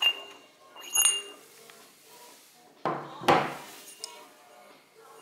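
Metal parts of a Gw UG 58 rifle grenade clinking as they are handled: two sharp, ringing clinks about a second apart, then a louder handling scrape about three seconds in and a light tick.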